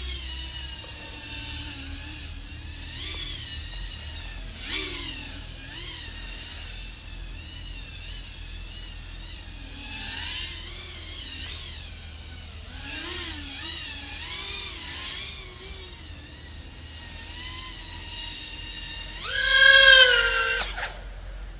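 iFlight AOS 3.5 V5 FPV quadcopter's XING 1504 brushless motors whining, the pitch rising and falling with throttle changes. About 19 seconds in there is a loud, sharply rising full-throttle punch that drops away about a second and a half later.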